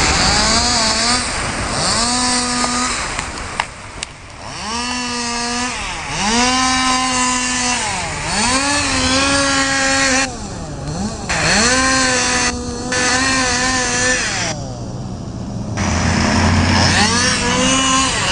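Chainsaw engine revved up and down over and over while cutting wood, its pitch climbing to full throttle, holding briefly and falling back every second or two. Near the end a lower, steadier engine sound takes over.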